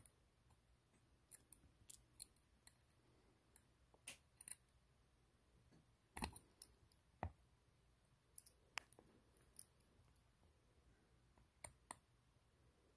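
Faint, irregular small metallic clicks of a small screwdriver working the tiny hinge block screw into an Edison Model C phonograph reproducer.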